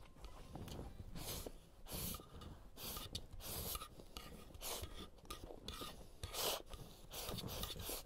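Close-miked eating: thin noodles slurped into the mouth in short hissing sucks, about one a second, with chewing between them.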